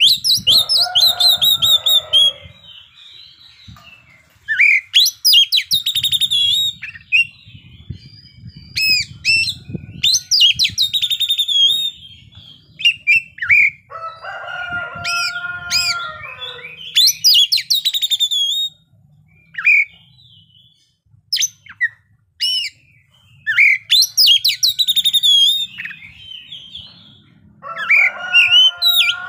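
Oriental magpie-robin (kacer) singing in full, varied song: loud bursts of high whistled phrases and rapid trills, separated by short pauses. Lower, harsher chattering phrases come near the start, around the middle and near the end.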